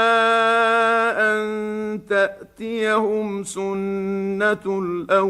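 A man's voice reciting the Quran in a slow, melodic tajweed style, with no music or effects. He holds one long steady note at the start, then carries on with drawn-out syllables broken by short pauses.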